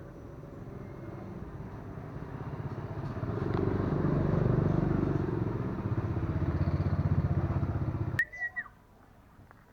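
A small motorcycle engine running nearby, growing louder over the first few seconds, with a fast even pulse, then cutting off abruptly about eight seconds in. Right after, a young common iora gives a short whistled call.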